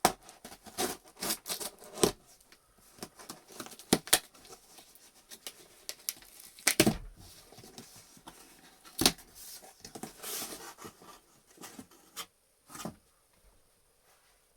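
A mailed package being opened by hand: packaging tearing, rustling and crinkling in irregular bursts, with sharp snaps and crackles. It goes quiet briefly near the end.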